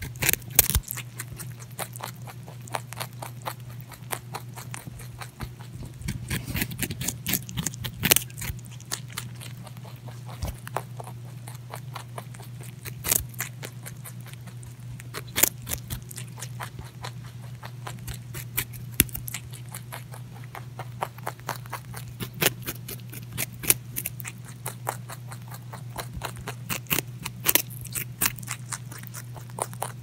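A rabbit crunching and chewing a raw carrot: rapid, irregular sharp crunches and clicks of its teeth on the hard carrot. A steady low hum runs underneath.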